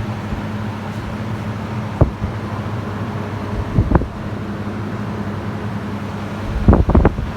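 Steady hum of the fans on a walk-in cold room's Buffalo Trident evaporators, with a couple of sharp clicks about two and four seconds in. Near the end, gusty buffeting of the air blast on the microphone takes over.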